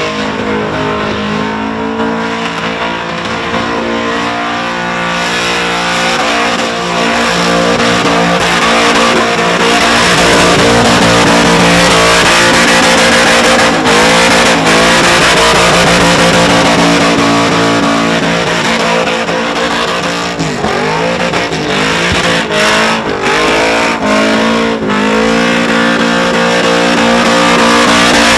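Supercharged VX Commodore's engine held at high revs through a burnout, rear tyres spinning and squealing. About twenty seconds in, the revs drop and climb back several times.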